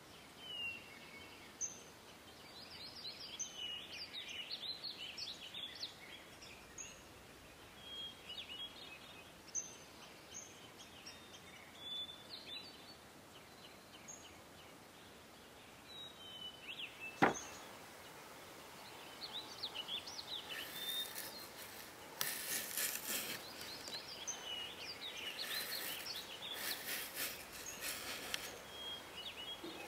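Small birds chirping and twittering, with one sharp click a little past halfway. In the last third, a steel knife blade paring a green apple makes repeated crisp scraping strokes.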